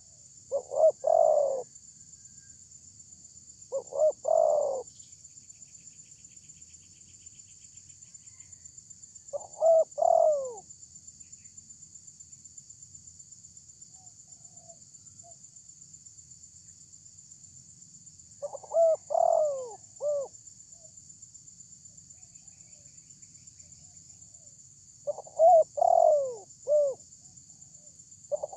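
Spotted dove cooing: short phrases of a few rolling coos, about six phrases at uneven gaps of several seconds. A steady high hiss runs underneath.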